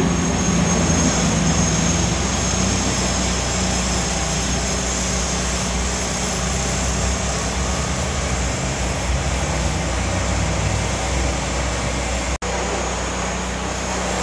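Steady street noise with a constant low engine drone from vehicles on a downtown street. The sound breaks off for an instant about twelve seconds in.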